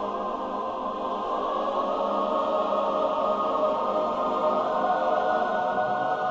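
Film score: a wordless choir holding long, sustained chords that swell slightly in loudness.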